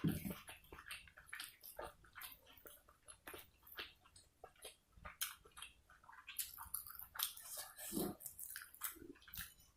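A person chewing food close to the microphone: a dense run of wet mouth clicks and lip smacks, with a couple of soft lower mouth sounds near the end.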